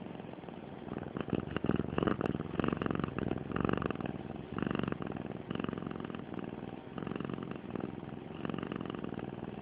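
A contented domestic cat purring steadily, the purr swelling and easing about once a second.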